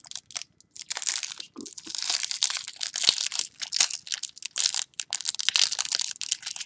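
Clear plastic wrapper of a baseball-card hanger pack crinkling and crackling as fingers pick and pull at it to open it, with a short lull about half a second in and busier crackling from about two seconds on.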